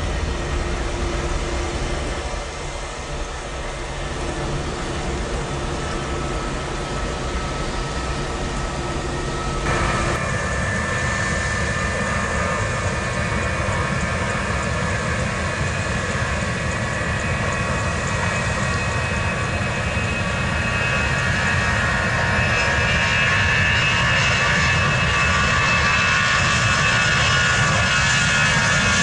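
Airliner jet engines running with a steady rush and a high whine. The sound changes abruptly about a third of the way in, and near the end the whine grows louder.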